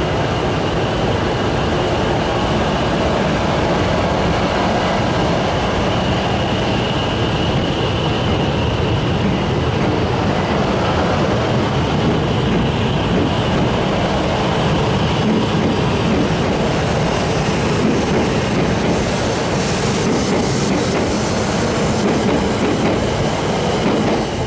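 JR East E8 series Shinkansen train moving slowly past on the station track, a steady mix of running noise and wheel sound with a faint thin whine, falling away near the end as its last car goes by.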